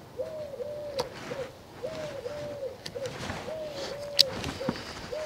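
A dove cooing in a repeated three-note phrase, two longer notes and a short one, about every second and a half to two seconds. A few sharp snips of pruning shears cutting leaves cut in, the loudest about four seconds in.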